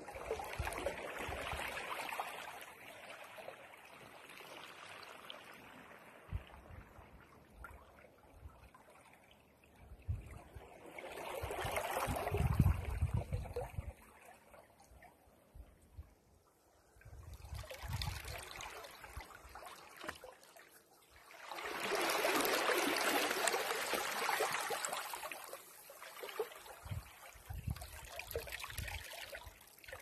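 Small waves washing in over a pebble and rock shore and draining back, swelling and fading in about four surges, the biggest about two-thirds of the way through, with a few low thumps among them.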